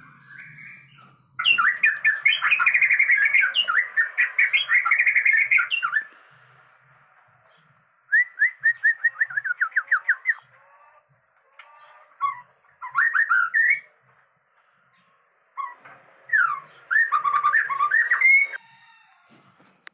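White-rumped shama singing in four bursts of rapid, sweeping whistled notes with short pauses between. The bird is recovering from hoarseness after several days of ginger treatment, and its voice is improved and fairly clear.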